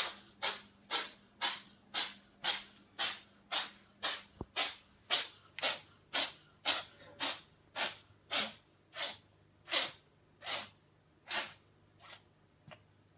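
A cat sneezing over and over in a long fit, about two sneezes a second at first, then slower and fainter near the end.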